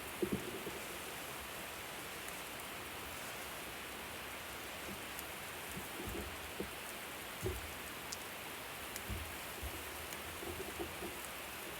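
Food sizzling on a hot barbecue grill: a steady hiss, with a few soft knocks along the way.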